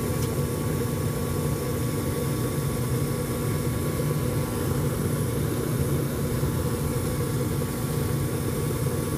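Furnace running with a steady hum and rush. It keeps firing with the cabinet temperature near 260 to 300 degrees, far past its high limit setting of 150, the sign that the high limit switch is not opening.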